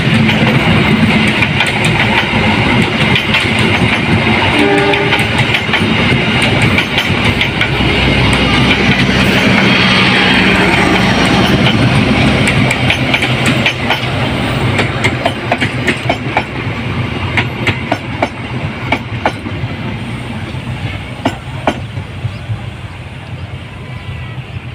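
A train of stainless-steel passenger coaches rolling past, a steady wheel-on-rail roar with clickety-clack as the wheels cross rail joints. From about fourteen seconds in it fades as the train draws away, the joint clacks coming through singly.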